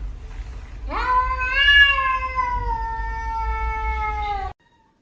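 A cat's long yowl, starting about a second in, rising quickly and then sliding slowly down in pitch for about three and a half seconds before it cuts off abruptly, over a low steady rumble.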